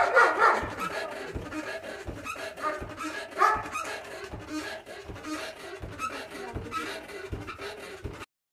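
Wooden dheki, a foot-operated rice-husking lever, its pestle thudding into the mortar in a steady rhythm of repeated low thumps as paddy is pounded to husk it.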